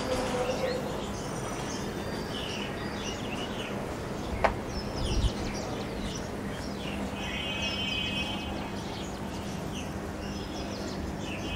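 Outdoor birds chirping and calling on and off, with a quick trill of evenly repeated notes just past the middle, over a steady low hum. A single sharp click and a low bump come a little before the middle.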